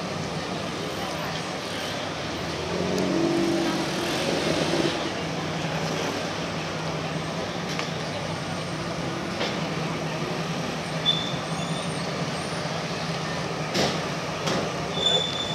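Twin diesel engines of a Mangusta 108 motor yacht running at low speed as she manoeuvres into her berth, a steady low hum. A few sharp knocks come near the end.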